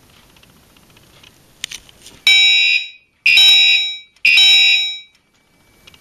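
Gentex fire alarm horns sound three short blasts about a second apart, each a loud multi-tone blare that fades off at its end. This is the brief sounding of a fire alarm walk test, and it is preceded by a couple of clicks.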